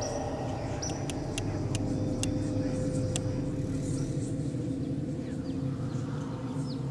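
A low steady rumble, with high chirps and a few sharp clicks from wildlife over it in the first three seconds.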